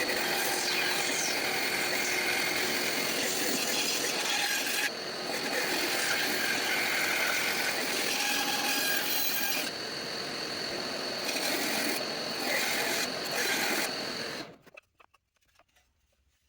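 Bandsaw cutting a 2x4 blank: a steady high whine over the noise of the blade cutting through the wood, shifting a few times as the cut changes direction. It stops suddenly near the end.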